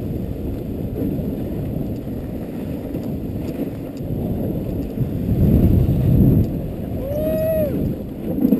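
Dog sled running over snow: a steady rushing noise of the runners and wind on the microphone, swelling about five seconds in. Near the end, one short high cry that rises and falls.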